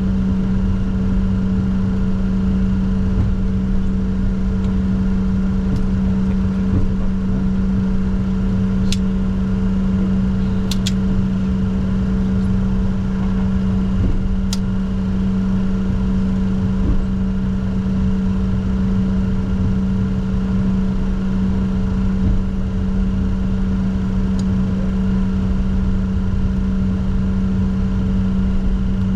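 Steady hum and low rumble inside the cockpit of a Bombardier Challenger 604 business jet with its engines and systems running, holding an even pitch, with a few faint clicks.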